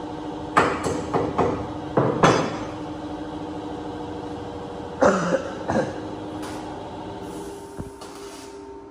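Several sharp knocks and clatters, each with a short ring: a few in quick succession about half a second in, two more around two seconds in, and another group a little after five seconds. A steady machine hum holding a few fixed tones runs beneath them.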